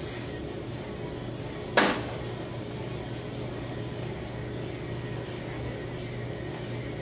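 Aerosol hairspray: a spray hiss that stops just after the start, then one short, loud spray burst about two seconds in, over a steady low hum.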